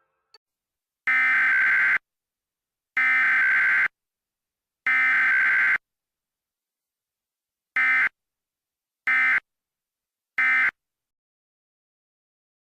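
Emergency Alert System SAME data bursts: three harsh, buzzy header bursts of about a second each, a second apart, then after a pause three short end-of-message bursts.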